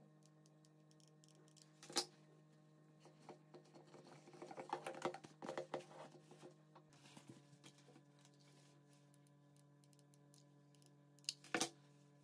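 Faint handling sounds: denim fabric rustling and crackling as it is pressed and smoothed against a thin plastic container, strongest in the middle. Sharp taps on the table come once about two seconds in and twice near the end.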